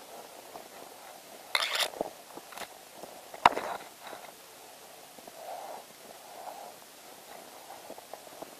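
Footsteps crunching slowly through fresh snow, with a brief rustle about one and a half seconds in and a single sharp click about three and a half seconds in, the loudest sound.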